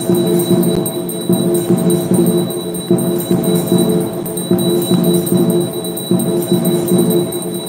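Devotional aarti music with jingling, bell-like percussion over a steady repeating beat.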